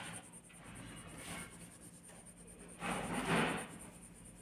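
Coloured pencil shading on paper: scratchy rubbing strokes, with a louder stretch of rubbing about three seconds in.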